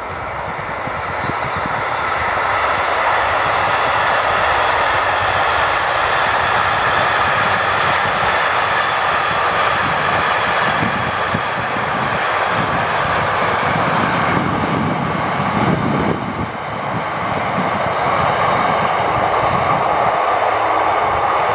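Freight train of container flat wagons rolling past: steady rolling noise of steel wheels on rails.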